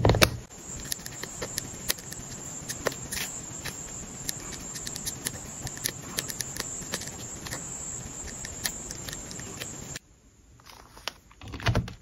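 Pen writing by hand on journal paper: a steady scratching with many small ticks as strokes start and lift, after a sharp tap at the start. About ten seconds in the writing stops, and a brief paper rustle follows near the end.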